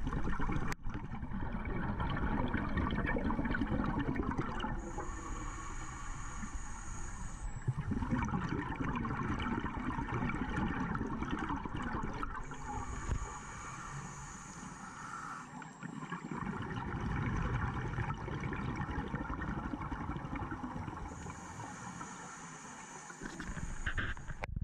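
A scuba diver breathing through a regulator, heard underwater through the camera's waterproof housing. Exhaled bubbles rumble and gurgle, alternating with hissing inhalations, three slow breaths in all.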